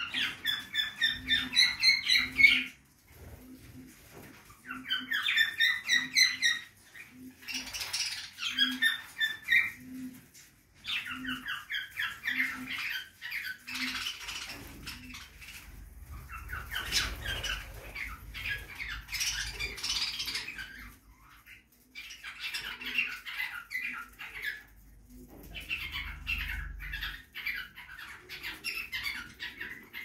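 A flock of budgerigars chattering in repeated bursts of rapid, scratchy warbling calls, with occasional wing flutters.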